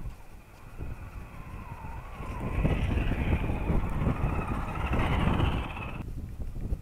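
Electric motor and gear whine of a radio-controlled scale crawler truck driving toward and past the camera; the whine climbs in pitch about two seconds in, holds, then cuts off abruptly about six seconds in. Low wind rumble on the microphone underneath.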